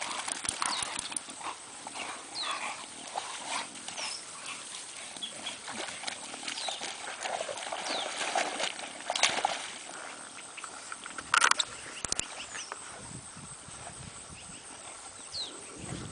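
Bulldogs wading and splashing through a shallow, duckweed-covered pond, with the dogs' own snuffling. A few sharp knocks come about nine and eleven seconds in.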